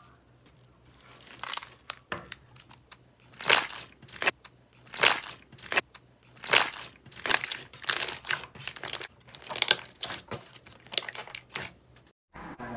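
Hands pressing and squishing clear green slime, making crackling, popping bursts about once a second as trapped air bubbles are squeezed out.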